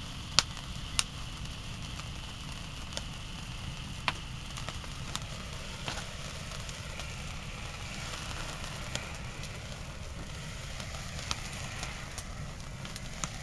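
Small firework fountains spraying sparks: a steady fizzing hiss with scattered sharp cracks and pops, the loudest about half a second in.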